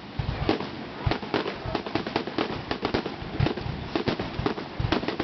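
Fireworks going off in a rapid, irregular string of sharp bangs and crackles, several a second, with deeper booms among them.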